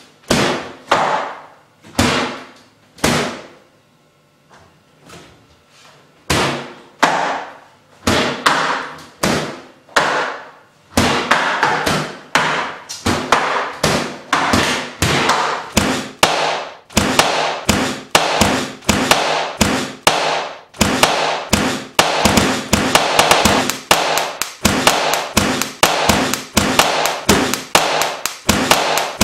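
Bass guitar solo of sharp slapped and plucked notes, each dying away quickly. The notes come sparse and uneven at first, grow denser about eleven seconds in, and settle into a fast, even beat of several notes a second over the last third.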